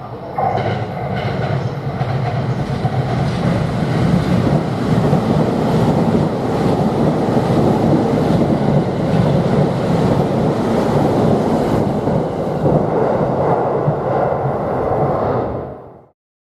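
JR East E233 series 7000 electric commuter train running along the platform: rumbling wheel and running noise with clicks of the wheels over rail joints, growing louder over the first few seconds, then steady until it cuts off suddenly near the end.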